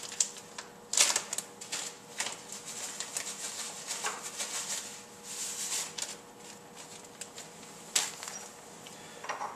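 Plastic zipper bag crinkling as flakes of solidified salt are shaken out of it into a ceramic mortar, with a few light clicks and taps among the rustling.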